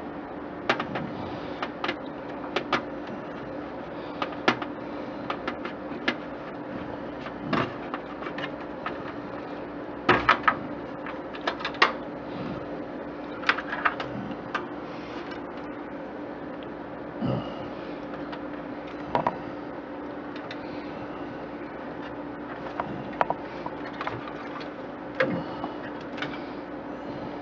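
Irregular clicks and knocks of hands working inside a desktop computer case, pulling out cables and connectors, over a steady hum.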